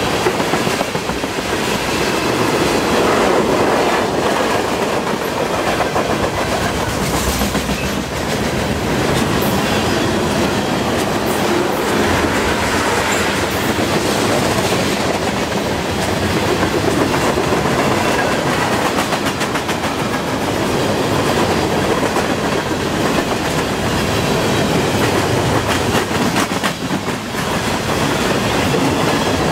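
Freight cars of a long CN train rolling past on steel rails: a loud, steady rumble and rattle of wheels and car bodies, with clicks as the wheels cross rail joints.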